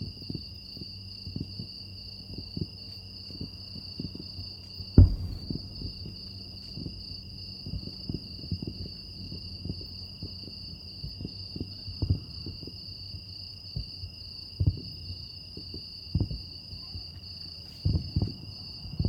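Distant fireworks going off as dull low thumps every second or so, the loudest about five seconds in, over a steady high trilling of insects.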